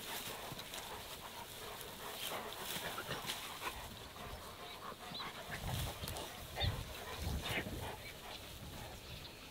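Several Spanish Mastiffs play-fighting: scuffling, panting and short dog noises, with a few louder, deeper sounds between about six and eight seconds in.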